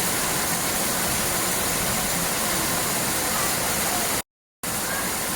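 Steady rushing noise of a waterfall. It cuts out to complete silence for a split second about four seconds in.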